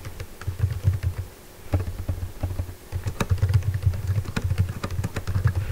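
Typing on a computer keyboard: a run of quick, uneven key clicks broken by short pauses, with a low hum that comes and goes with the typing.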